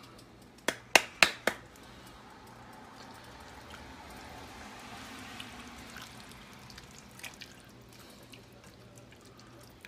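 Four quick, sharp knocks of a utensil against an enameled cast-iron Dutch oven, then a soft rushing hiss that swells and fades over a few seconds as ingredients go into the pot.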